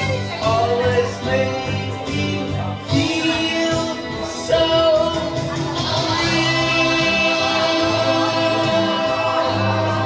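A man singing live into a handheld microphone through a PA, over instrumental accompaniment, holding a few long notes.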